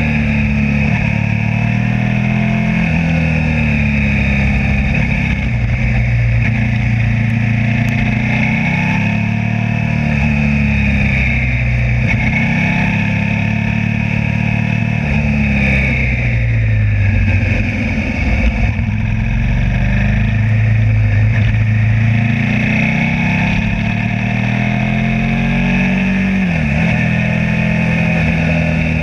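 Suzuki SV V-twin motorcycle engine heard from onboard while riding, its revs rising and falling several times through the bends.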